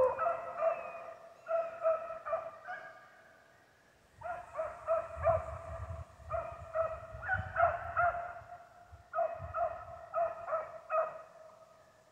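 Rabbit-hunting beagles baying on a chase, a quick string of short calls. The calls break off for about a second a few seconds in, then start again and stop shortly before the end.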